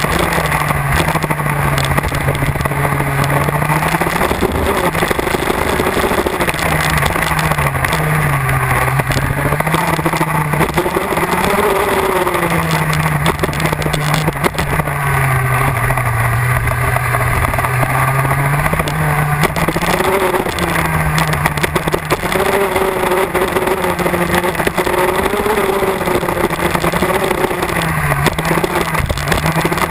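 MAC Minarelli 125cc two-stroke KZ2 gearbox kart engine at racing speed, heard from onboard, its note rising and dropping over and over as the kart accelerates and slows through the corners.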